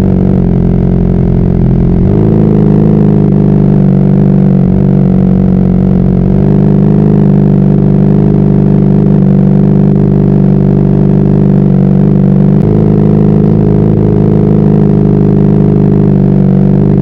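Honda CBR600RR's inline-four engine running under way at steady revs, with small steps in pitch about 2, 6 and 12 seconds in.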